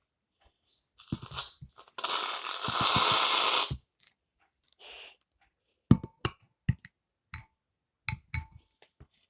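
Aerosol can of shaving foam spraying: a short sputter, then a loud hiss for about two seconds. After it come several light clicks and taps of containers and utensils.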